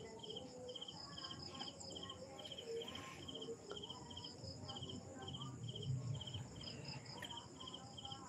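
A cricket chirping steadily, each chirp a quick group of pulses, about three chirps a second.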